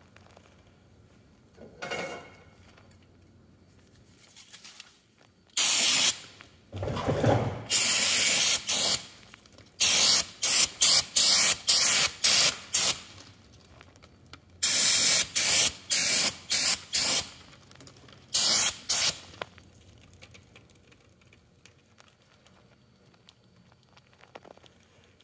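Aerosol brake cleaner hissing from the can onto a drum brake assembly in repeated bursts: several long sprays and runs of short quick squirts over some fifteen seconds.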